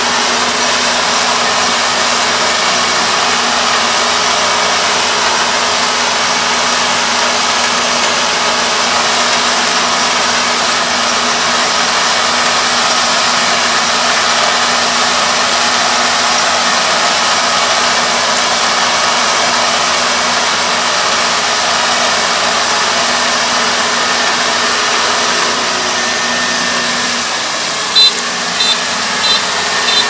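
Iseki ER470 combine harvester running steadily while it harvests rice. Near the end, a few short high beeps, about two a second.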